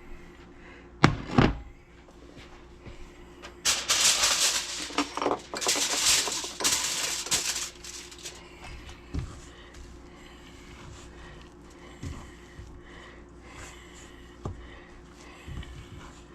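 Kitchen handling noises: two sharp knocks about a second in, then about four seconds of loud crinkling rustle, followed by scattered light taps and knocks.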